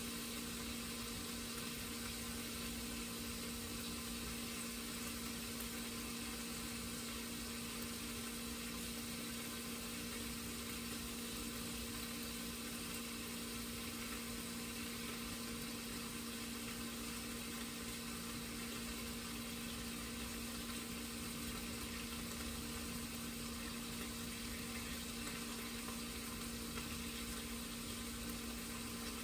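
Kitchen range hood fan running: a steady hum with a constant low tone under a rush of air.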